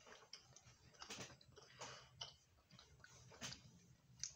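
Faint, irregular clicks and small crackles over a low steady hum, otherwise near silence.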